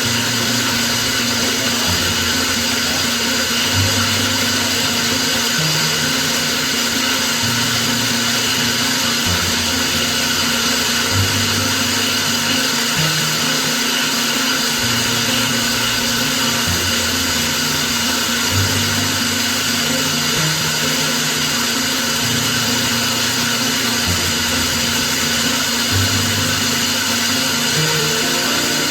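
A power tool's motor running continuously at a steady pitch, resurfacing a brake rotor.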